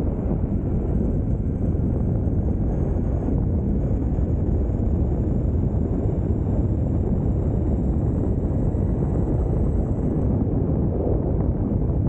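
Steady low rumble of wind buffeting the microphone, mixed with the rolling noise of the electric mountainboard's tyres on asphalt as it travels at speed. Faint high steady tones sit above it.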